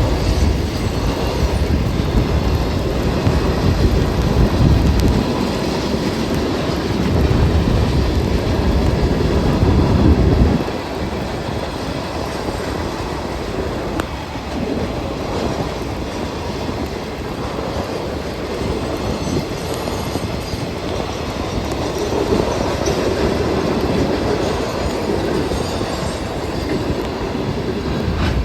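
Great Lakes Central Railroad train rolling past on the rails, wheels clicking over the rail joints. A heavy low rumble drops away sharply about ten seconds in, leaving a lighter, steady rolling noise.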